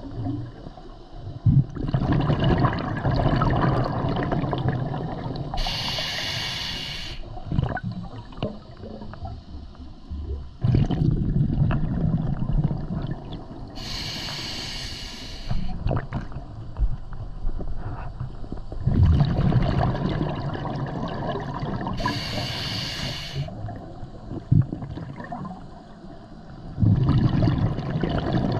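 A scuba diver breathing through a demand regulator underwater. There are three short hissing inhales about eight seconds apart, and each is followed a few seconds later by a long rumbling rush of exhaled bubbles.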